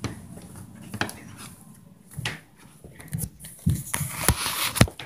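A series of irregular thumps and knocks, the loudest near the end, with a rustling hiss just before it.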